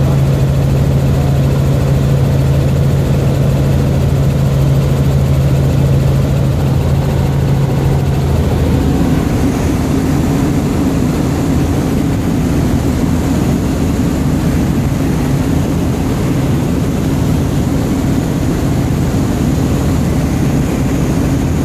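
Helicopter in flight heard from inside the cabin: a loud, steady drone of rotor and engine. Its low hum shifts in pitch about eight seconds in.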